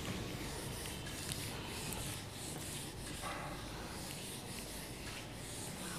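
Whiteboard duster rubbing across a whiteboard in repeated back-and-forth wiping strokes, faint and hissy.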